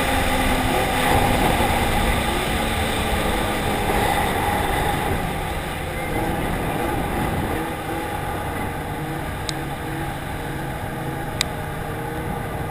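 Arctic Cat ZR4000RR snowmobile heard from on board while riding: steady engine and track noise that gradually gets quieter. Two brief clicks near the end.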